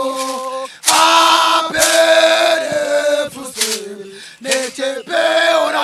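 Male voices chanting a song without instruments, in long held notes broken into phrases, with a short pause about a second in and a quieter stretch past the middle.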